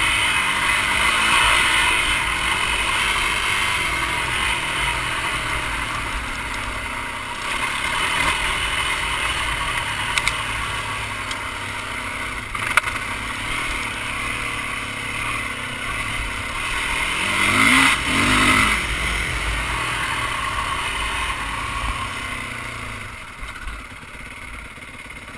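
Yamaha dirt bike engine running under load over a rough dirt trail, with wind hiss on the microphone. The revs climb sharply about two-thirds of the way through, and two sharp knocks come in the middle. Near the end the engine winds down as the bike slows.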